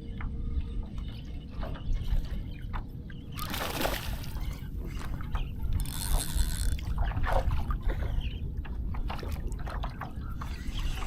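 Water sloshing and trickling against a kayak's hull, with scattered small knocks and clicks and two brief hissing bursts, about four and six seconds in, over a steady low rumble.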